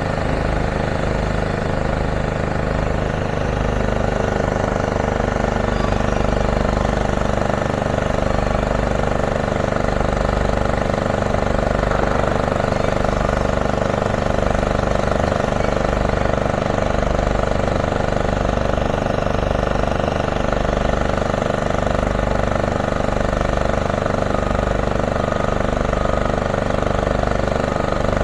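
Diesel engine of heavy demolition plant running steadily at a constant speed.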